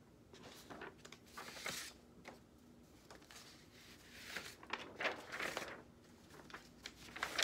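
Large sheets of drawing paper rustling and crinkling as they are lifted and turned over by hand, in a few soft bursts.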